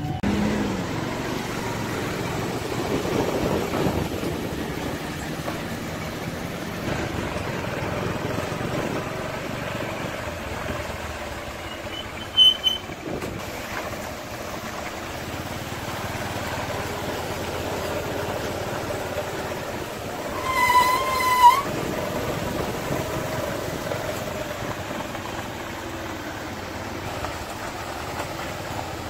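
Steady engine and road noise of a motorcycle ridden along a dirt road. A short high beep sounds a little before the middle, and a vehicle horn sounds for about a second about two-thirds of the way through.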